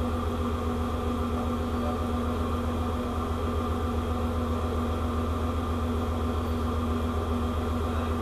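Steady mechanical hum of a ship's running machinery: a deep, constant drone with a fainter higher hum over it, unchanging throughout.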